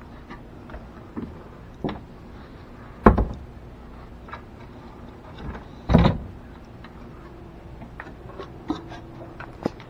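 Footsteps and knocks of someone climbing down a wooden attic ladder: two heavy thumps about three seconds apart, with lighter knocks and clicks between them.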